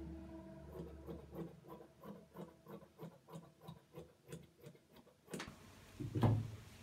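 Tailoring scissors snipping through fabric in a steady run of about three cuts a second, stopping about five seconds in. A low thump follows about a second later as the scissors are put down on the table.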